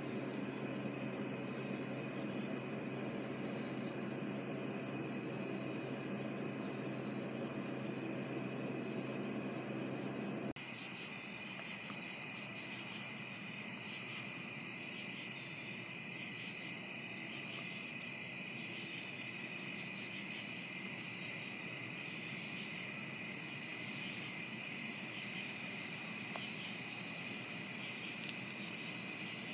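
Night chorus of crickets and other insects: steady high trilling in several overlapping pitches. A low steady hum sounds under it for the first ten seconds or so and cuts off suddenly, after which the insects sound louder.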